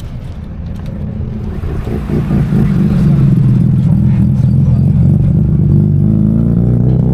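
Rotary-engined car running, its engine note growing louder over the first couple of seconds and then holding steady with a slightly wavering pitch.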